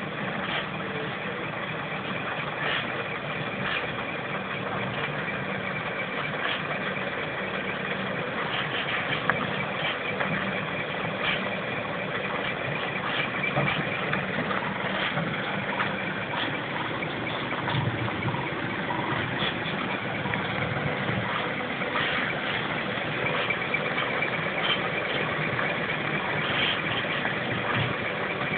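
Scania truck's diesel engine running steadily at low revs while it reverses with a drawbar trailer.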